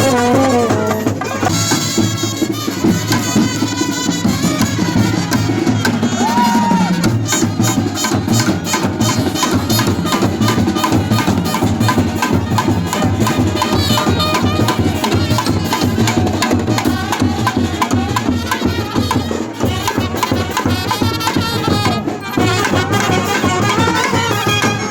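Traditional festival music: fast, steady drumming under a wavering melody line.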